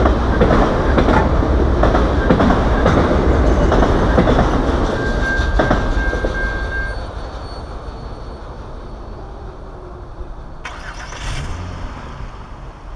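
Freight train cars rolling past at speed, their wheels clicking over the rail joints, with a short high steady squeal about five seconds in. The rolling noise fades away after about six or seven seconds as the last car goes by, leaving a much quieter rumble.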